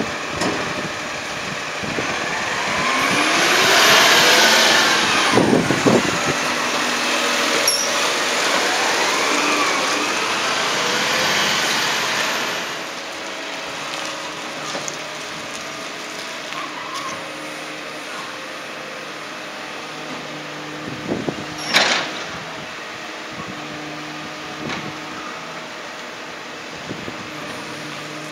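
CCC Labrie Automizer side-loader garbage truck driving past, its engine revving with rising and falling whines. It then runs quieter at a steady idle hum, with one short, sharp, loud burst of noise about three quarters of the way through.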